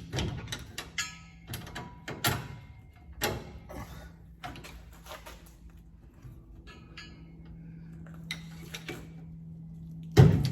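Metal parts and hand tools clanking and knocking during drive-shaft work: a run of knocks and clicks over the first few seconds, a few lighter ones later, and one loud knock near the end, over a steady low hum.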